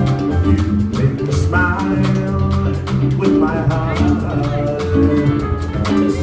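Live jazz combo playing an instrumental passage: electric guitar over upright double bass and drum kit.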